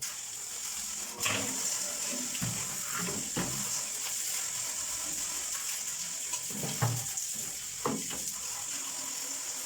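A tap running steadily as water splashes into a drum vacuum cleaner's dust canister being rinsed, with a few knocks as the parts are handled.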